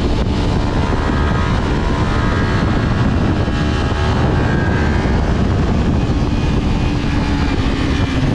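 Kawasaki Ninja 250R's parallel-twin engine running hard through an aftermarket WRX exhaust while the bike is ridden at speed, mixed with wind rush on the bike-mounted microphone.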